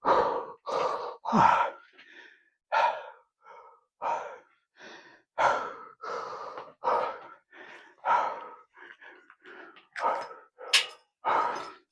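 A man breathing hard and sighing, heavy exhalations about once a second: winded and recovering from a set of heavy barbell squats.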